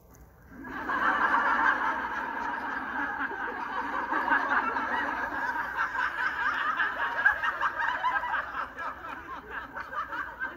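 A crowd of people laughing together: a long wave of audience laughter that swells about half a second in and slowly dies down near the end.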